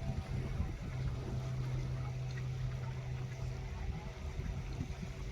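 A motor running with a steady hum that stops about four seconds in, over a low outdoor rumble.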